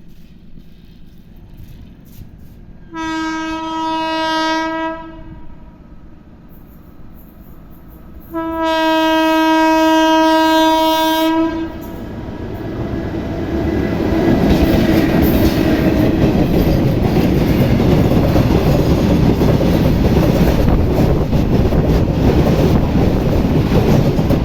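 Horn of a WAG-7 electric locomotive: a single-note blast of about two seconds, then a longer blast of about three and a half seconds. The train's rumble and wheels on the rails then build up and stay loud as it passes.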